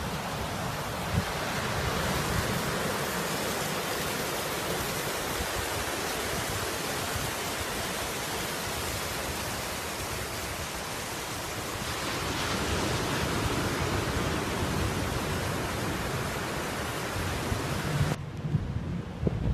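Steady rush of ocean surf breaking on a sandy beach. Near the end the rush drops away abruptly and wind buffets the microphone.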